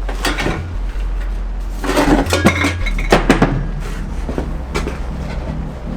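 Metal objects clattering and clinking as they are handled and moved about, with several sharp knocks around the middle.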